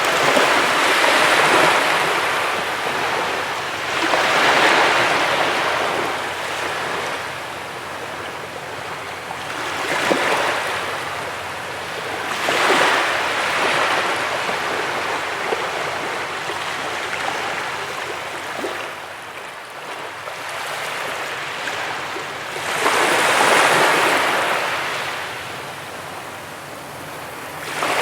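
Ocean surf on a beach: waves break and wash up in swells every few seconds, with a quieter lull in the middle before a big wave near the end.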